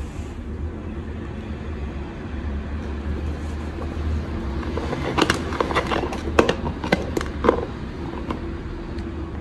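A 3D-printed TPU sneaker being handled and squeezed: a run of sharp clicks and taps from the plastic about five to seven and a half seconds in, over a steady low rumble.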